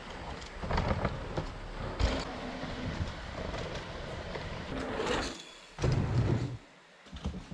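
Mountain bike riding a dirt jump line: steady rolling tyre and air noise with a heavy low rumble, a sharp knock about two seconds in and a louder burst of rumble around six seconds in.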